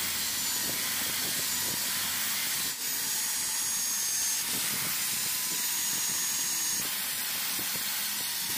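Corded electric hand drill running steadily with a high motor whine and hiss as its bit bores down into a wooden knife-handle block. The drill dips briefly about three seconds in.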